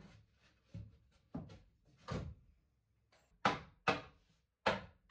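A hammer striking a plywood board: a few soft knocks as the board is fitted by hand, then four sharp hammer blows in the second half.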